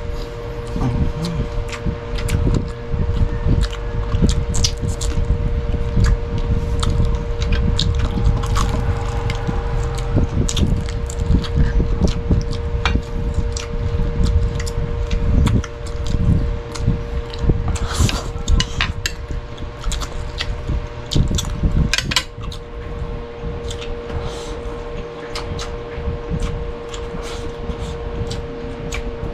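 Close-miked mukbang eating sounds: chewing and many sharp clicks of utensils against plates and dishes over a dense low rumble, with a steady hum underneath.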